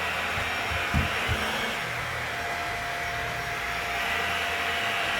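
Shark Rotator Lift-Away vacuum cleaner running steadily over carpet, with two dull knocks about a second in.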